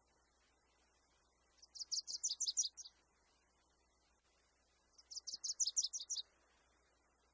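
A small songbird singing two short phrases a few seconds apart, each a quick trill of about ten high notes lasting just over a second.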